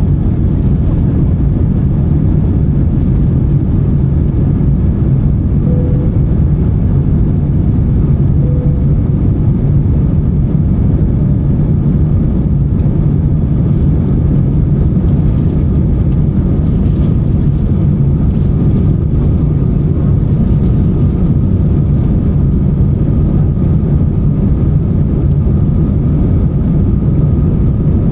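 Steady cabin noise of an Airbus A350-900 in its climb: the Rolls-Royce Trent XWB engines and the airflow give a dense, unbroken low rumble, with a faint thin whine in the second half.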